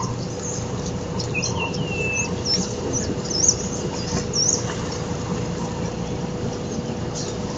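Birds calling outdoors: a handful of short chirps and one whistle that falls and then holds, between about one and a half and four and a half seconds in, over a steady background rush.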